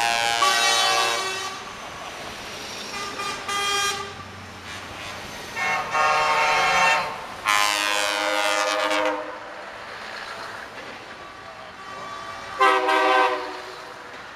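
Air horns on a convoy of passing heavy trucks, sounded in a series of long blasts and short toots. The blast near the middle falls in pitch as it goes.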